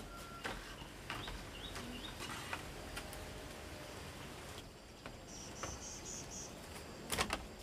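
Insects chirping: a quick run of about five high, even pulses a little past the middle, over a low background with scattered light clicks.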